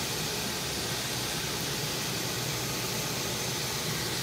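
Pot of pork and eggs boiling in coconut water, giving a steady, even hiss.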